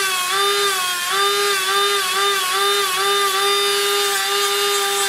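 Dremel Stylus cordless rotary tool with a felt buffing wheel running with a high, steady whine. Its pitch dips briefly about six times in quick succession as the spinning wheel is pressed against a resin model part to take off flashing, then it runs steady again.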